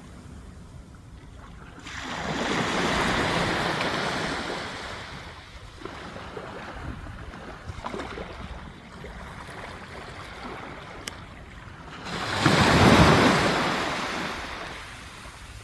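Waves surging onto a beach of smooth round pebbles, two breakers about ten seconds apart, the second louder, with pebbles clicking and rattling as the water drains back between them.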